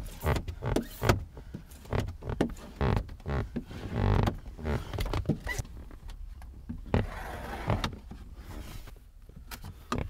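Squeegee working tint film on the wet glass of a car's rear window: irregular rubbing strokes and small knocks of the tool on the glass.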